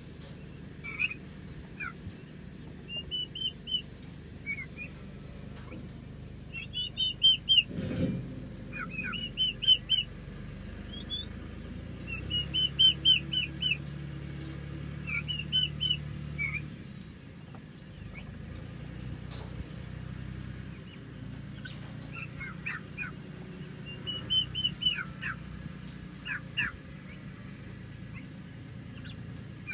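A flock of turkey poults peeping: runs of short, high chirps, several notes at a time, with gaps between the runs. A low hum for a few seconds in the middle and a single knock about eight seconds in.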